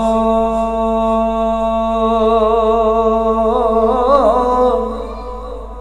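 A man singing unaccompanied, holding one long note on the last word of a line of Punjabi Sufi kalam, with a wavering ornament about three and a half seconds in before the note fades near the end.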